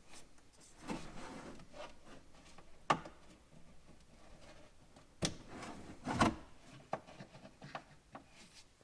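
Quiet handling noise of a fog light assembly being worked on by hand: plastic rubbing and scraping, with a few sharp clicks and knocks, as the burnt-out bulb is worked out of its housing.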